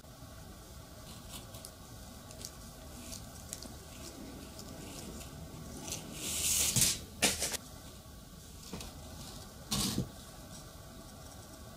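Hands handling bare copper wire and a battery on a paper pad: light taps and rustles, a louder scraping rustle about six seconds in, a few sharp clicks just after, and another brief scrape about ten seconds in.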